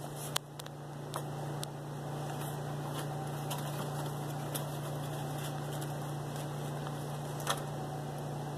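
A few sharp knocks from a PVC pipe being slid down over a metal T-post, the loudest near the end, over a steady low hum.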